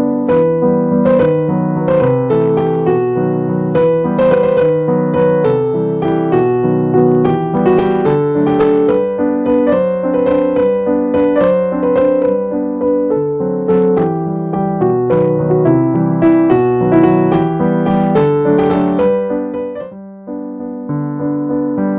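Background piano music: a steady run of struck notes, with a brief break about twenty seconds in.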